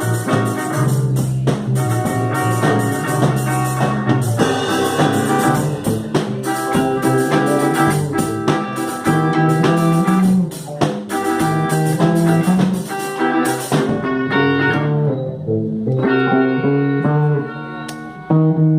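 Instrumental rock band playing: electric guitars and bass over a drum kit. Near the end the drums drop out, leaving held guitar and synthesizer notes.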